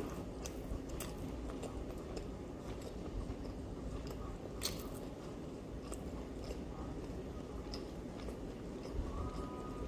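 A person chewing and biting into egg rolls, close to the microphone, with a few sharp crunches.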